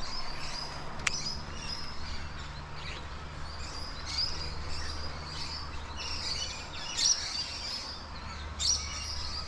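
Wild birds chirping and calling over and over in the riverside bush, with a low steady hum underneath and a single sharp click about a second in.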